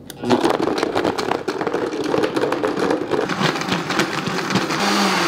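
Countertop blender switched on and running hard, chopping a whole frozen cucumber in water, with the chunks knocking and rattling against the jar throughout. Near the end the knocking thins and the motor note steadies as the cucumber breaks down.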